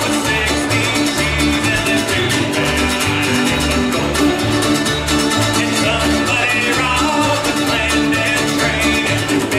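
Bluegrass band playing at a steady tempo: bowed fiddles, mandolins, guitars and banjo over bass notes repeating evenly on the beat.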